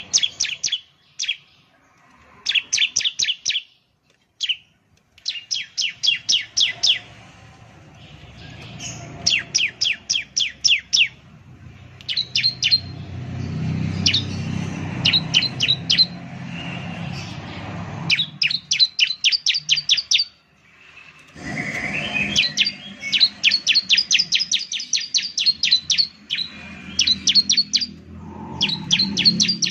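Bar-winged prinia (ciblek) singing: repeated bursts of rapid, sharp chirps, about eight to ten a second, each burst lasting about a second with short pauses between.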